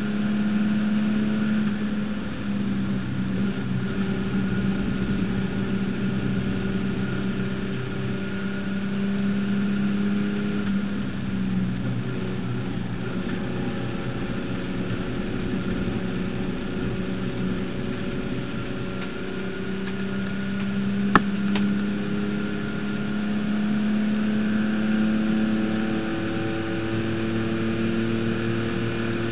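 Holden HQ race car's straight-six engine running hard at high revs, its note falling and climbing again over several seconds at a time. There is a single sharp click about two-thirds of the way through.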